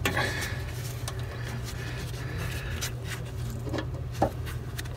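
Hand tools working a stubborn, soft brass air-line fitting under the coach: a few faint metallic clicks and knocks over a steady low hum, the brass crumbling as it is gripped.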